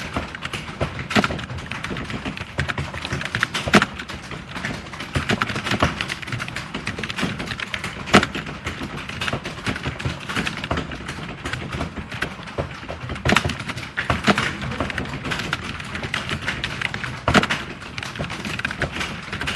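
Fast typing on a computer keyboard: a rapid, continuous patter of key clicks, with now and then a single louder keystroke.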